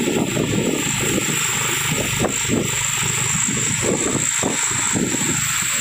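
Wind buffeting the microphone of a moving vehicle, mixed with engine and tyre noise on wet asphalt, with a steady high whine underneath.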